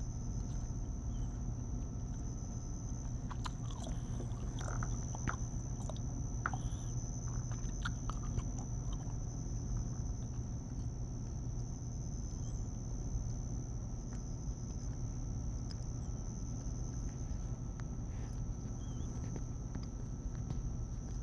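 Steady high-pitched insect drone over a low background rumble, with a few faint clicks and scratches between about three and nine seconds in.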